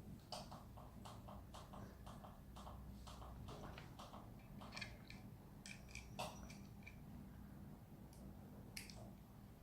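Faint, irregular clicks and taps of small plastic construction-kit pieces being handled and pressed together.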